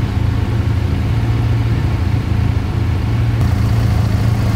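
Motorcycle engine idling steadily, with an even, unchanging low pitch.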